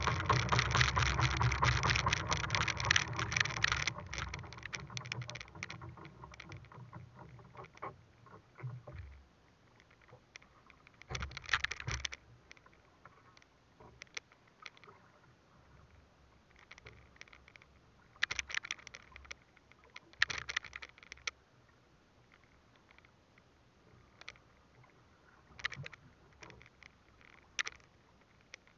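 Water slapping and splashing against the hull of a small open boat on choppy sea. It is loud for the first four seconds, then quieter, with a few short splashes later on.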